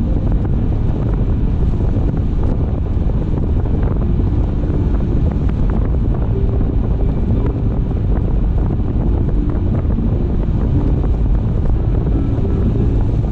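Car driving along the road: a steady low rumble of tyre and wind noise.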